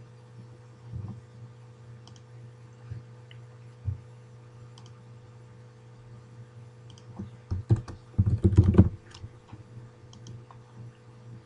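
Computer keyboard typing: a quick run of keystrokes lasting about a second and a half, a little past the middle, after a few single clicks, over a steady low hum.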